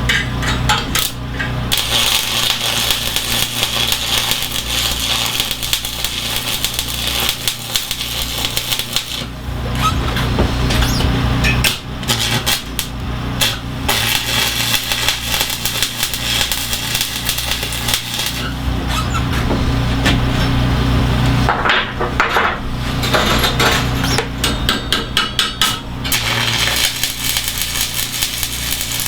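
Electric arc welding on a steel bench leg: a steady crackling buzz over a low hum, laid down in several runs of a few seconds with short pauses and clicks between them.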